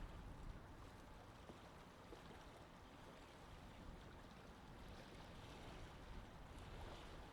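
Near silence: a faint, steady low rumble and hiss of outdoor background noise, with no distinct event.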